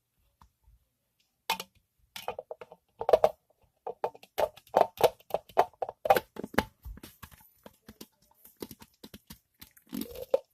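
Irregular run of quick taps and clicks of close-up handling noise, starting about a second and a half in and continuing with a cluster near the end.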